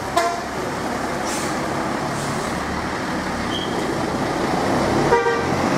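Tour coach diesel engines running as a Hino coach pulls out slowly, with a steady low rumble. A short pitched beep comes just after the start and another near the end, and a brief hiss comes about a second in.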